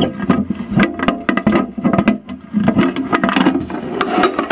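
Handling noise heard from inside a closed metal ammo can: irregular knocks, scrapes and rubbing as the box with the camcorder in it is moved, sounding muffled and boxy.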